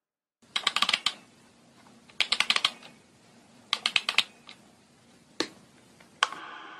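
Typewriter sound effect: three quick runs of key clacks, then two single strokes, the last one followed by a ringing bell-like ding that fades.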